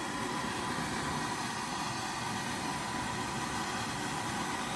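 Small handheld propane torch burning with a steady hiss, lighting the charcoal in a gravity-fed smoker.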